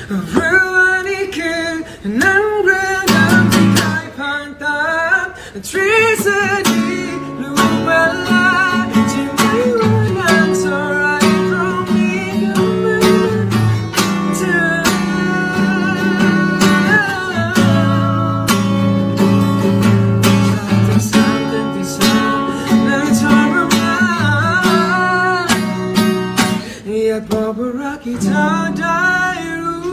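A man singing a ballad while strumming a steel-string acoustic guitar, with short breaks between sung lines.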